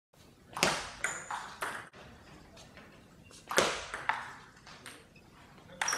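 Table tennis ball clicking off the rubber bats and the table in a rally: four quick knocks, a pause of over a second, then another run of four.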